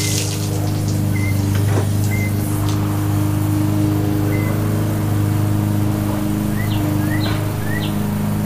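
2010 Yamaha F6 6 hp four-stroke outboard running steadily, a good-running motor after cleaning. A few short high chirps sound over it.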